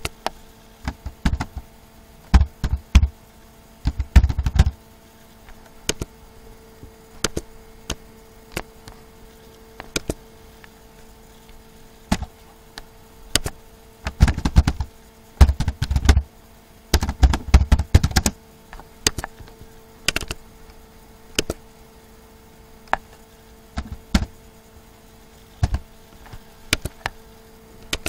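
Computer keyboard typing: sharp keystrokes in irregular bursts with short pauses between, the densest runs a few seconds in and around the middle. A steady faint hum runs underneath.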